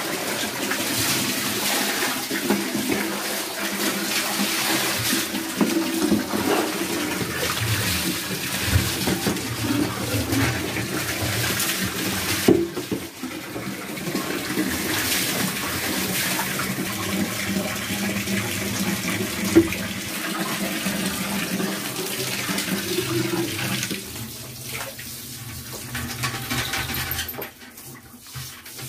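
Water running and splashing in a small tiled bathroom while a dog is washed, a steady rushing spatter that eases off near the end, with an occasional knock.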